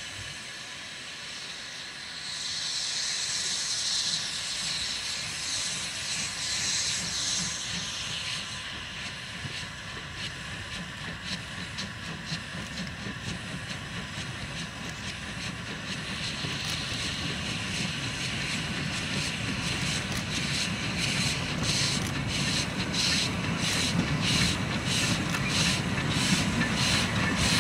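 Two NGG16 2-6-2+2-6-2 Garratt steam locomotives starting a freight train: loud hissing steam around the cylinders, then a steady chuffing exhaust beat from about sixteen seconds in, with a low rumble, growing louder as the train gets under way.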